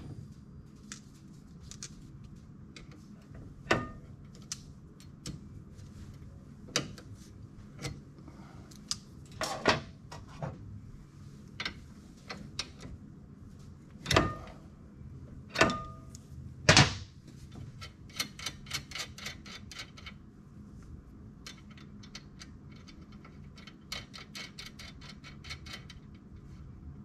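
Hand tools at an ATV's lower ball joint: scattered metal clinks and knocks from the wrench and socket, with quick runs of ratchet clicking as the ball joint nut is turned, about two thirds of the way in and again near the end.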